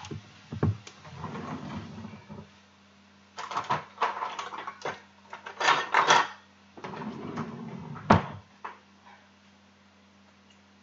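Kitchen handling sounds over a faint steady hum: scattered knocks, rustling and clatter as things are picked up and set down, with the sharpest knock about eight seconds in.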